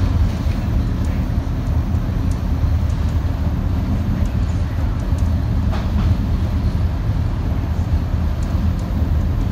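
Double-decker bus driving along an open road, heard from the upper deck: a steady low engine drone mixed with road noise, with a few faint clicks and rattles.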